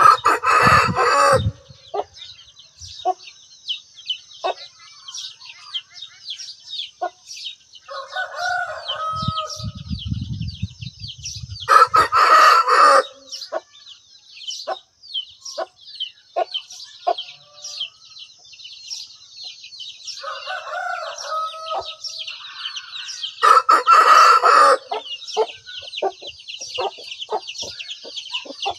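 Chickens: a rooster crows three times, roughly ten seconds apart, while hens cluck in short calls throughout. A dense, high-pitched chirping runs underneath.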